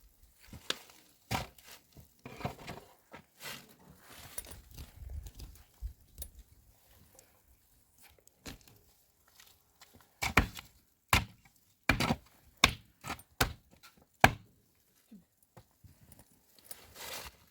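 Irregular knocks and thuds, sparse at first, then a run of sharp, loud ones from about ten to fourteen seconds in.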